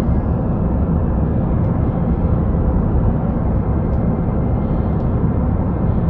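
Steady low rumble of engine and airflow noise inside the cabin of an Airbus A350-900, its Rolls-Royce Trent XWB engines running as it descends towards landing.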